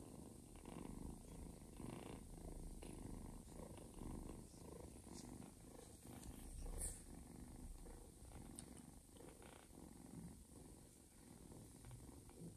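Mother cat purring faintly and steadily while her kittens nurse.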